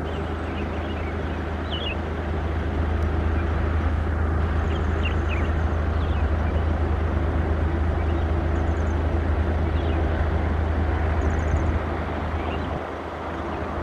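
Steady low engine rumble, with a few short bird chirps and three brief high rapid trills above it; the rumble eases near the end.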